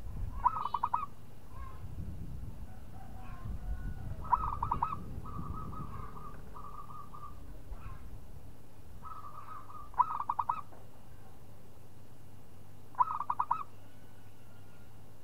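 Zebra dove (perkutut) cooing: four phrases, each a quick run of staccato coos lasting about a second, coming near the start, about four seconds in, about ten seconds in and about thirteen seconds in, with longer held coos joining on after the second phrase and before the third.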